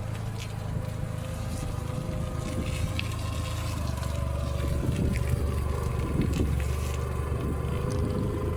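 Car engine running steadily at idle: a low hum with a faint steady whine above it, swelling a little about halfway through.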